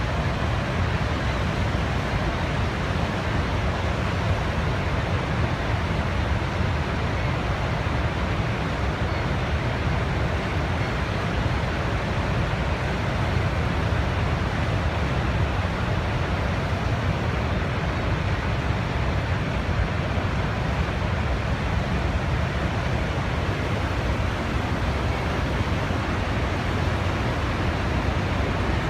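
Steady, unbroken rushing noise of a natural ambience, heaviest in the low end, with no separate events or changes.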